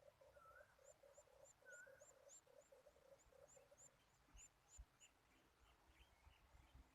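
Faint bird calls: a series of short, high chirps repeating about three times a second, over a quick run of low pulsed notes in the first few seconds.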